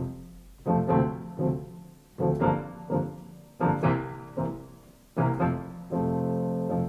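Solo piano playing a slow introduction: a series of chords and melody notes, each struck and left to ring and fade, with a longer chord held near the end.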